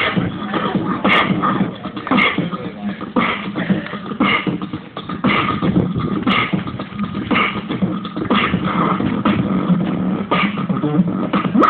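Beatboxer laying down a steady hip-hop break beat into a handheld microphone, played through a small amplifier, with a sharp snare-like hit about once a second.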